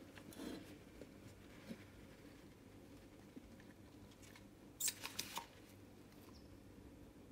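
Stainless steel soap pump dispenser pumped onto a scrub sponge, giving a quick run of about four sharp clicks and squirts about five seconds in. Faint handling rustles come before it.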